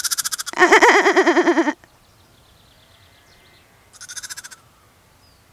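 Orphaned three-day-old lamb bleating: one long, quavering bleat of about two seconds, then a shorter, fainter call about four seconds in.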